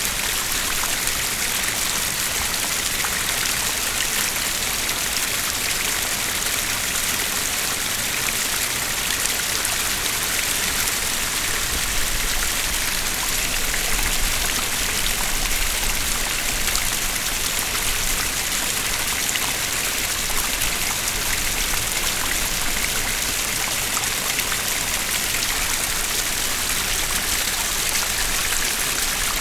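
Two small streams running side by side over rocks, a steady splashing and gurgling rush of water.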